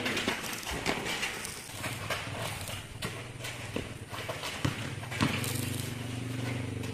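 A basketball bouncing on a concrete court and players' sneakers running, a scatter of sharp irregular knocks. From about five seconds in a steady low hum joins underneath.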